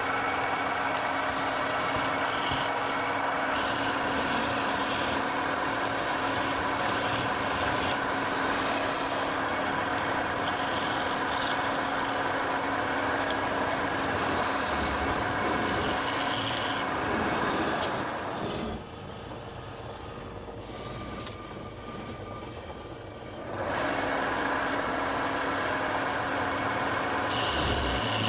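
Wood lathe running while a turning chisel cuts a long spinning workpiece: a steady scraping over the machine's hum. About two-thirds of the way in it goes quieter for roughly five seconds, then the cutting resumes at full level.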